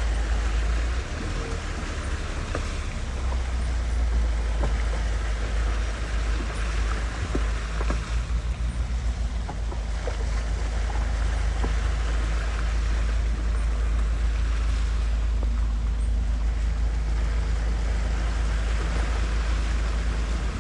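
Jeep driving along, a steady low rumble with wind buffeting the microphone.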